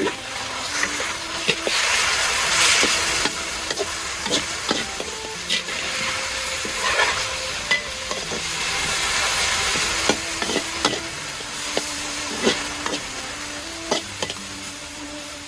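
Food sizzling as it fries in a pan, with a utensil clicking and scraping against the pan as it is stirred.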